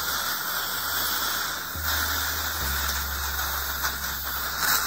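Dental suction drawing in air and water with a steady hiss while an air-water syringe sprays the lower molars to rinse off debris, with a brief louder surge near the end.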